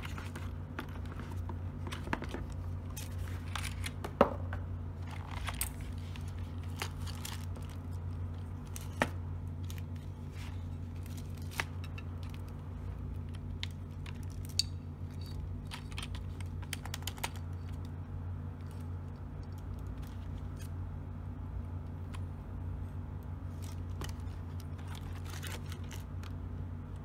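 Plastic MD tech KB-210M wired keyboard being handled and shifted about on a plastic bag: scattered light clicks and knocks, a few sharper ones, with faint crinkling, over a steady low hum.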